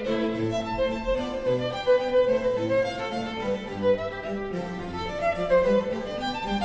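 Violin playing a classical piece in a steady run of changing notes, with lower notes from an accompanying instrument sounding beneath it.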